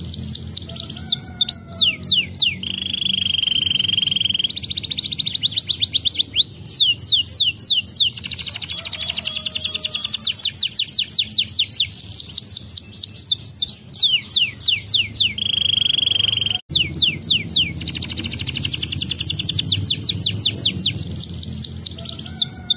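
Domestic canary singing loudly in long, fast trills of rapidly repeated downward-sweeping notes, broken by held steady notes. The song drops out for an instant about two-thirds of the way through and then starts the same phrases over.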